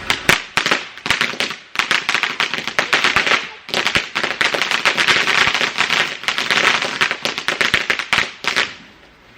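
A firework crackling: a dense run of rapid, sharp cracks with two short lulls, thickest in the middle, stopping abruptly just before the end.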